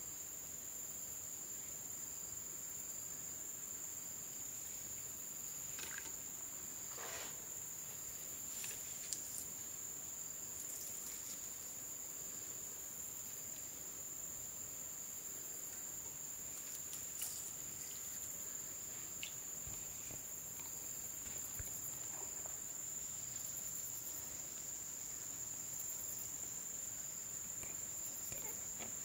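A steady, high-pitched drone of insects that does not break, with a few faint clicks and rustles now and then.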